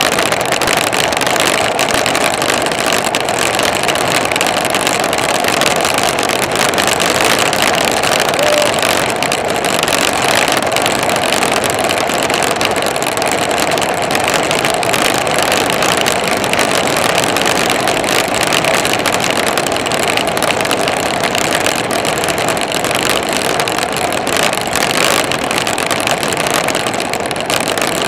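Steady rushing wind buffeting the microphone of a bike-mounted camera, mixed with tyre noise on asphalt as the bike rolls along at a constant speed.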